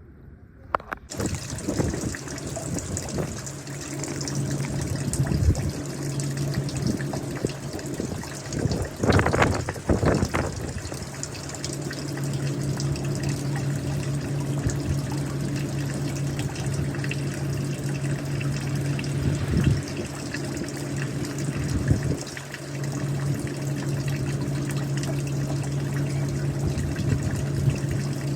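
Water running and trickling, starting about a second in, over a steady low hum. There is a louder gush about nine seconds in.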